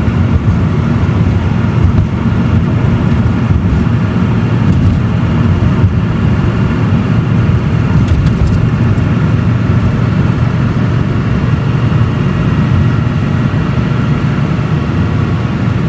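Domestic cat purring steadily and loudly close to the microphone, a continuous low rumble with a fast pulsing grain.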